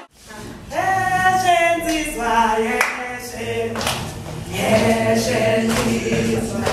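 A group of voices singing unaccompanied, starting just under a second in, with a sharp beat struck about once a second.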